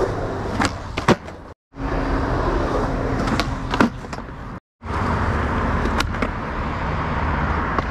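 Skateboard wheels rolling on concrete, with several sharp snaps of the tail popping and the board landing from flip tricks. The sound drops out twice, briefly, between clips.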